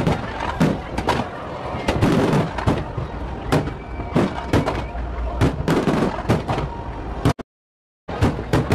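Fireworks display: aerial shells bursting in quick succession, many sharp bangs following one another. The sound cuts out completely for about half a second near the end.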